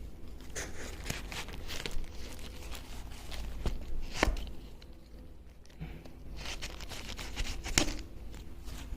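Packaging of a phone tempered-glass screen protector being torn open and crinkled by hand: irregular crackling with two sharp clicks, one about four seconds in and one near the end.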